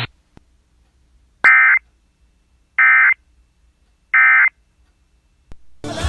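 Emergency Alert System end-of-message tones: three short, identical buzzy bursts of SAME digital data, evenly spaced about a second apart, marking the end of the alert. A brief noisy sound comes just at the end.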